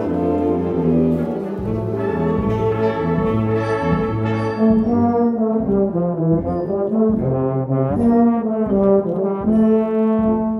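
Live ensemble music with brass to the fore, a euphonium among the instruments playing.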